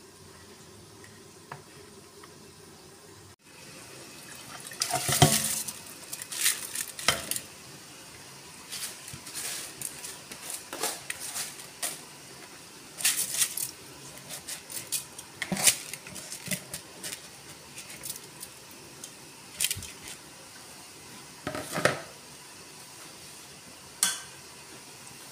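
Mutton stock boiling hard in a metal pot with soaked rice just added, bubbling and spluttering in irregular pops and splashes. A faint steady hum for the first few seconds, before a cut.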